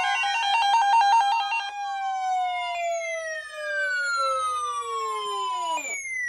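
Synthesized siren-like electronic tones: a stepping, warbling pattern over a rising tone, then a cluster of tones sliding slowly downward together, dropping sharply near the end and cutting off.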